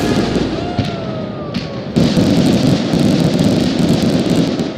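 Fireworks finale barrage: a dense, continuous rumble of overlapping shell bursts with a crackling hiss, growing louder about two seconds in.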